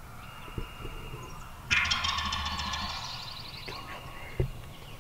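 A wild turkey gobbling once, a loud rattling call about a second and a half in that fades over the next second or so.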